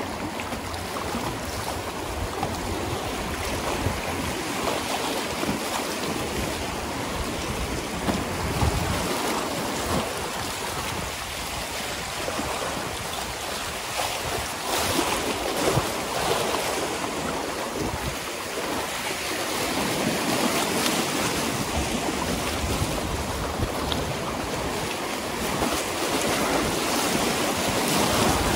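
Shallow river riffles rushing and splashing over rocks: a continuous whitewater noise that swells and eases as the kayak runs through the rough water.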